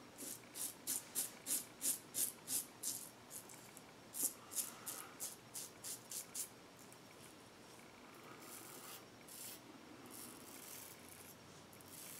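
Double-edge safety razor with a Rockwell blade scraping stubble on the neck during touch-up passes. It opens with a run of about a dozen short, quick strokes, about four a second, followed by sparser strokes and then a few softer, longer passes near the end.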